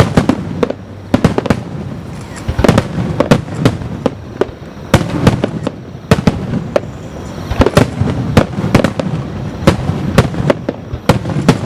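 Fireworks display: aerial shells bursting in a rapid, irregular run of sharp bangs and crackles, often in clusters.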